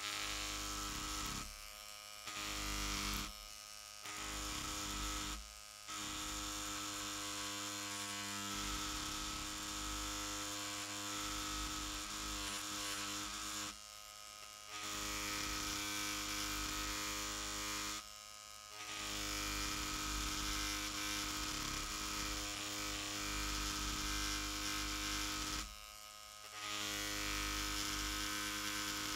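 Cartridge tattoo machine with a large beveler tip running at 8 volts, its needle hammering into cased leather with a steady buzz. The buzz breaks off for under a second about six times.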